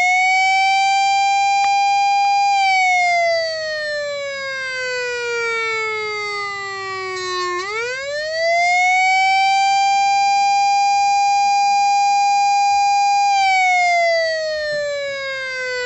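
Whelen WS-2000 electronic siren's wail tone through an 80-watt speaker driver. The pitch holds high, then slowly falls, sweeps back up about halfway through, holds again, and starts falling near the end.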